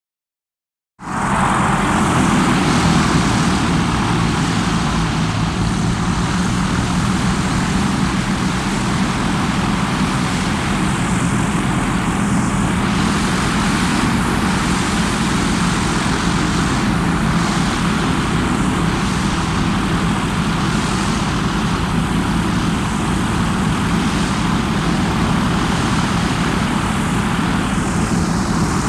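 Blimp's propeller engines running with a steady drone that starts abruptly about a second in and holds an even level throughout.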